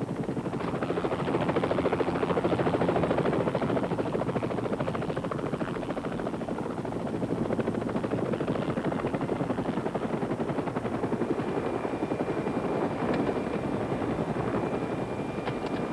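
Police helicopter running on the ground close by, its rotor blades chopping in a fast, steady beat. A thin, steady high whine joins about eleven seconds in.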